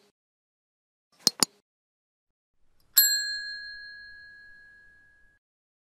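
Subscribe-reminder sound effect: a quick double mouse click right at the start and another about a second and a half in, then a single notification-bell ding about three seconds in that rings out and fades over two seconds.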